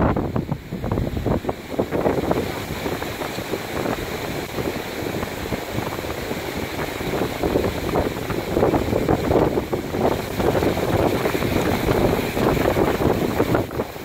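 Wind buffeting the microphone in uneven gusts, over the wash of ocean surf running up the sand.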